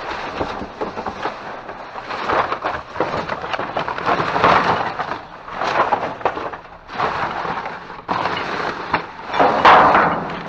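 Trash being rummaged through and shifted by hand, a dense crackling and rustling with many small clicks that swells louder several times, loudest near the end.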